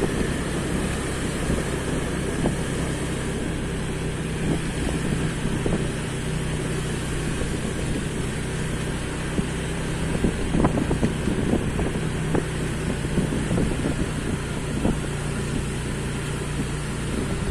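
Vehicle engine running at a steady speed, with wind rushing over the microphone as it moves along the road.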